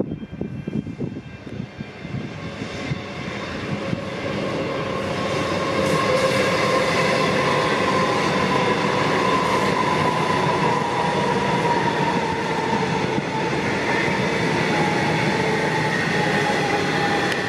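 Comeng electric suburban train approaching and then running past at close range. The wheel-on-rail rumble grows louder over the first few seconds and then holds steady, with a faint whine that slowly falls in pitch.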